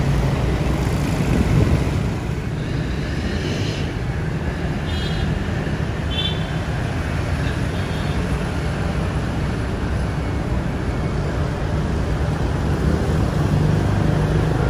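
Diesel engines of large sleeper coaches running as they pull away at low speed: a steady low rumble over street traffic noise, with a couple of short high beeps near the middle.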